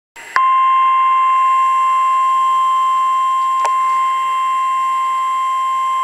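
NOAA Weather Radio warning alarm tone: a single loud, steady high-pitched tone of about 1050 Hz that switches on abruptly about a third of a second in and holds unbroken. It signals an Emergency Alert System activation, here for a severe thunderstorm warning.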